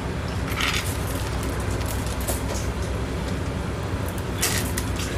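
A steady low rumble from the diesel train waiting at the station. Two short rattles, about half a second in and near the end, come from the chained commemorative stamp being handled.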